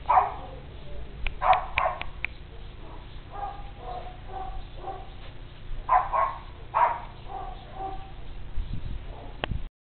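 West Highland White Terrier giving short, sharp barks in small clusters: one right at the start, several around one and a half to two seconds in, and a few more around six to seven seconds in, with softer yips between.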